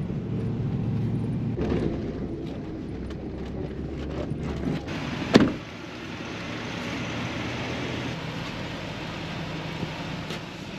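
Pickup truck engine running, heard from inside the cab while driving, then one sharp thump about halfway through, after which a steady vehicle engine hum carries on outside.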